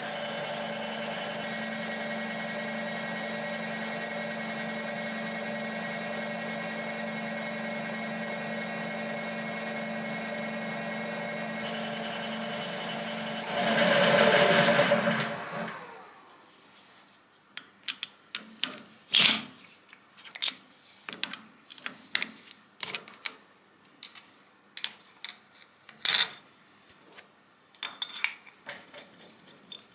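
Milling machine spindle running steadily while a drill bores a hole in a mandrel collar. The cutting gets louder for about two seconds around the middle, then the spindle winds down and stops. After that comes a run of light metallic clinks and taps as tools and the part are handled.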